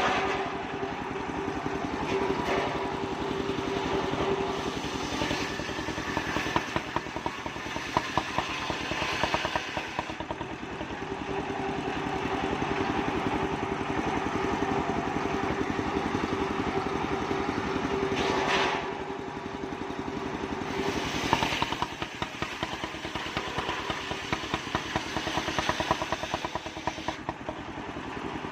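Homemade portable circular sawmill running: its small engine runs steadily with a fast even pulse and a constant hum from the spinning drive, with a few brief surges of harsher, brighter noise, the clearest about two-thirds of the way through.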